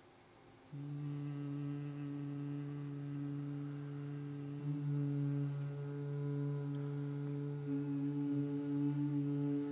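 Small vocal ensemble humming a sustained low chord that comes in suddenly about a second in. The held notes shift a few times.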